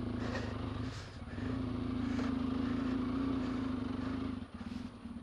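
A motorcycle engine running steadily at low, even revs, dropping back briefly about a second in.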